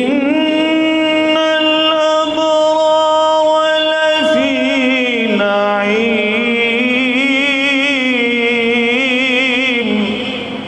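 A man's voice reciting the Quran in the melodic, drawn-out tajwid style. One long note is held level for about four seconds, then the voice turns into a wavering, ornamented line that falls away about ten seconds in.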